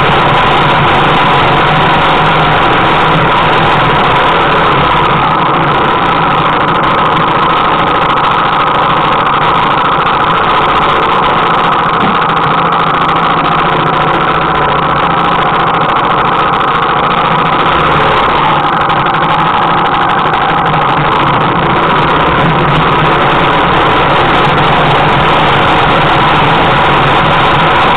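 Single-cylinder four-stroke motorcycle engine running steadily at low trail-riding speed, heard close from on board the bike.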